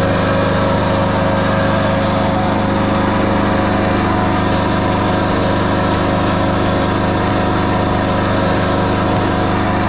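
A straw blower's small petrol engine running steadily at speed.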